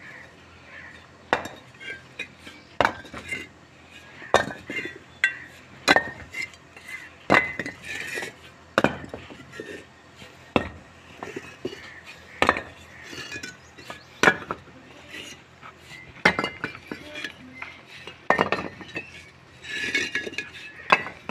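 Fired clay bricks clinking and knocking against each other as they are picked up by hand from a pile and stacked, a sharp clack every second or two.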